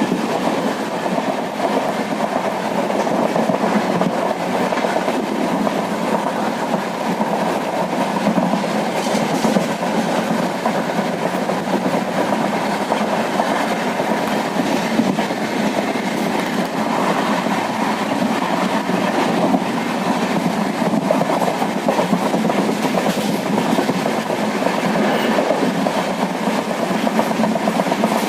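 Train running along the track: a steady noise of wheels on rails with the odd faint click.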